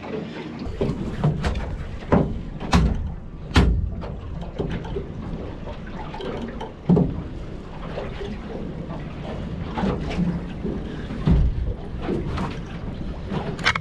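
Irregular knocks and thumps as a freshly caught chinook salmon is handled on a boat's deck, over a steady low rumble of the boat and water.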